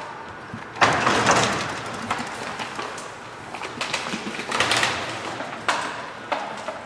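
Station ticket-gate barrier flaps closing, a sudden noisy swish about a second in that fades over a second. Several shorter, lighter knocks and rattles follow.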